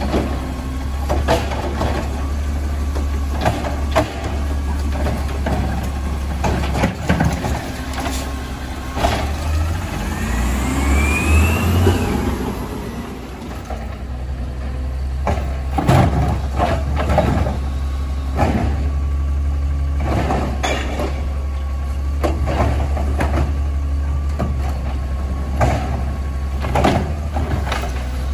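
Natural-gas automated side-loader garbage truck running steadily while its hydraulic arm dumps recycling carts into the hopper. There are repeated knocks and clanks from the cart and arm, and a rising whine about ten seconds in as the engine speeds up for the hydraulics.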